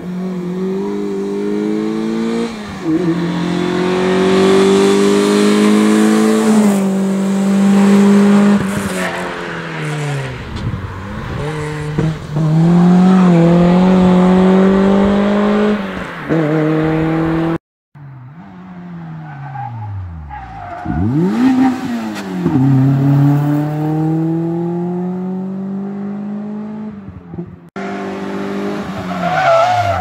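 Suzuki Swift rally car's engine revving hard through a cone slalom, the note climbing and dropping over and over as the driver accelerates, lifts and changes gear. The sound cuts off briefly twice.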